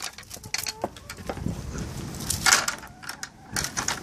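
Knocks, clatter and rustling as a wooden garden gate with reed screening is handled and pushed through, with two louder scrapes in the second half.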